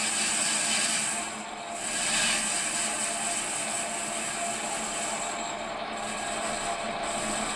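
Metal lathe running with a turning tool cutting along the outside of a cast iron cylinder, a steady cutting hiss over the hum of the motor and gearing. The hiss dips briefly about a second and a half in and flickers off and on near the end.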